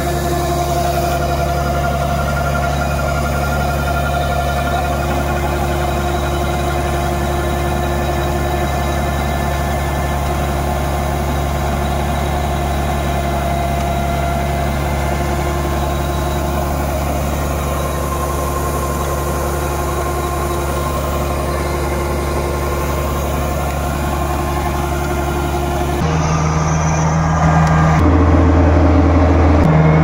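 Kubota DC68G Harvesking combine harvester's diesel engine running steadily while it unloads threshed rice through its grain spout. The hum grows louder in the last few seconds, up close to the machine.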